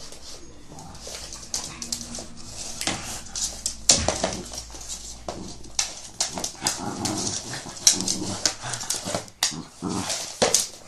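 Cavalier King Charles Spaniel playing with a tube of hand cream on a wooden floor: claws scrabbling and scraping, with short whimpering noises.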